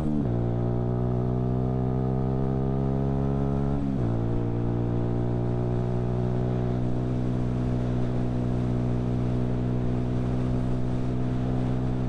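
Keeway Superlight 125's single-cylinder four-stroke engine pulling away under load. Its pitch drops with an upshift at the start and another about four seconds in, climbs between them, then holds nearly steady as the bike settles to a cruise.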